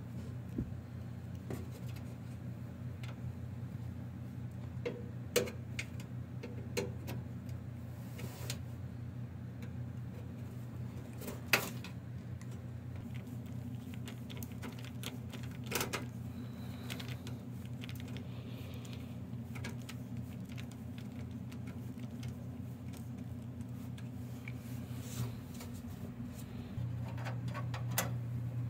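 Scattered clicks and metal taps of hands and a screwdriver working on a steel computer case, the sharpest one near the middle, over a steady low hum that grows a little louder near the end.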